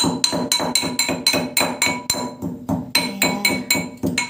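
Pestle pounding roasted black sesame seeds in a mortar: quick, even clinking strikes, about five a second, that stop abruptly near the end.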